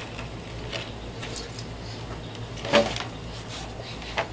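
Faint scraping and knocking of a heavy concrete pier block as it is tipped up onto its side against dirt and a wooden board, with a short louder knock about three seconds in, over a steady low hum.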